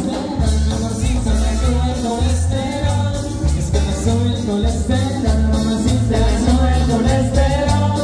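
Live band playing amplified Latin dance music through PA speakers: a male singer over congas, drum kit, bass and guitar with a steady, pulsing beat.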